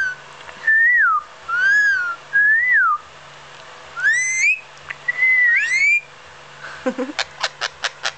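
Pet talking bird whistling a series of short notes that swoop up and down, then chattering with a quick run of clicks near the end.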